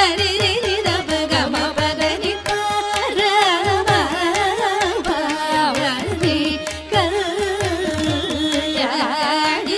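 Carnatic varnam in raga Kalyani: a voice singing richly ornamented, oscillating phrases with melodic accompaniment and steady percussion strokes keeping the tala.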